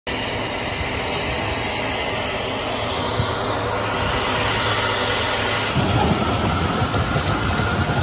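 Steady turbine engine noise with a hiss. About six seconds in it changes to a louder, uneven low rumble with rattling as an M1 Abrams tank drives up the loading ramp of a C-17 cargo aircraft.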